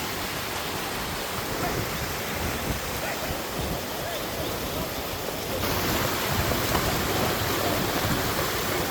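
Mountain stream water rushing steadily. It turns suddenly louder and brighter about five and a half seconds in.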